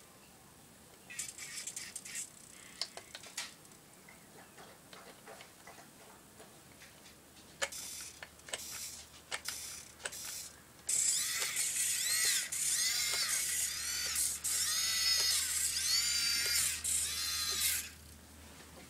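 Siku Control32 radio-controlled John Deere 8345R model tractor: scattered small clicks and brief whirs, then, about halfway through, its electric drive whirs loudly for about seven seconds in repeated rising and falling surges as it drives.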